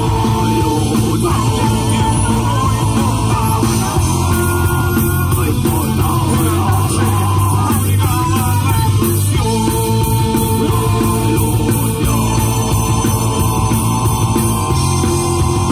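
Rock band playing live at full volume: electric guitars, bass, drum kit and keyboard, with a singer's voice over the music.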